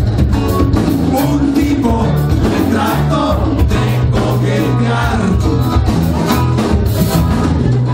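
Live band playing amplified music, with a lead singer over guitars and a steady drum beat.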